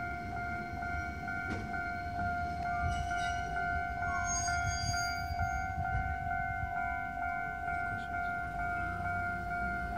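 Japanese railway level-crossing warning bell ringing continuously in quick repeated electronic tones, over a low rumble of trains and traffic.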